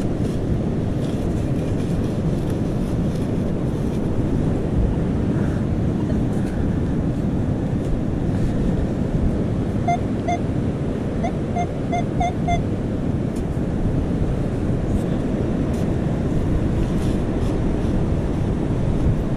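Wind buffeting the microphone over ocean surf. About ten seconds in, a quick string of short, high beeps from the metal detector sounds for a couple of seconds as it picks up a target.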